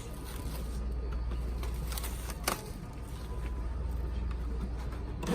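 Quiet handling of a trading-card box and cards: faint rustling and small ticks, with one sharp click about two and a half seconds in, over a steady low hum.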